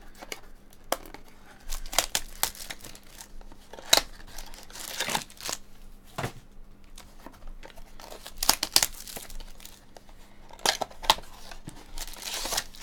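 A stack of baseball cards handled and flipped through by hand: irregular quick snaps and clicks as cards are pushed off the stack, with a few short scraping swishes as cards slide across one another, the longest about five seconds in and near the end.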